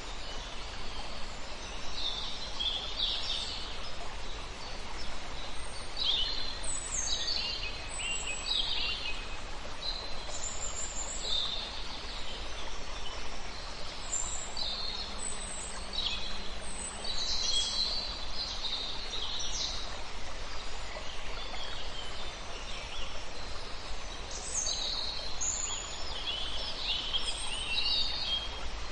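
Small birds chirping and singing in quick, repeated phrases throughout, over a steady hiss of a small river or stream.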